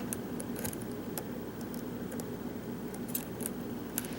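Hook pick working the pins of a Sargent-keyway pin tumbler lock under tension: a handful of small, scattered metallic clicks and scrapes. A steady low hum runs underneath.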